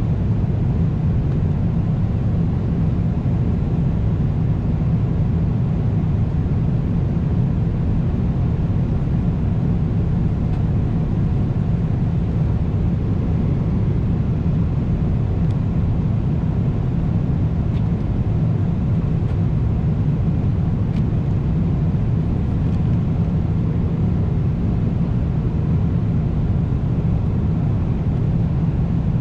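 Steady, deep cabin noise of a Boeing 777-300ER airliner in flight, with a few faint clicks.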